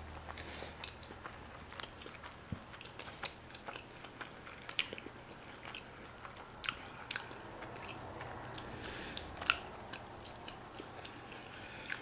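Close-up chewing of a steak burrito: a run of soft, wet mouth clicks and smacks, with a few sharper clicks about halfway through and near the end.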